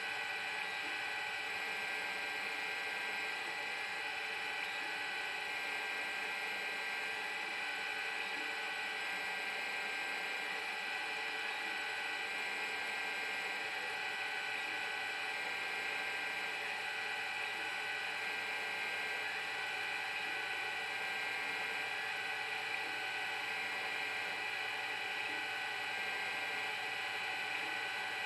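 Metal lathe turning a part under CNC control, with stepper motors driving the cross slide and carriage. It makes a steady whine with several high tones that holds even throughout.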